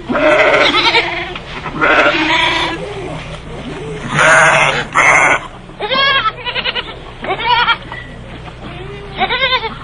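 Goats or sheep bleating, about eight loud calls one after another from more than one animal, several of the later calls quavering.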